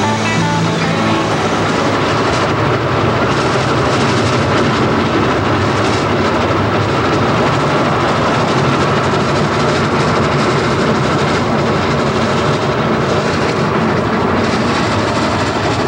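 Norfolk & Western 611 steam-hauled passenger train running along the track, a steady noise of the moving train throughout.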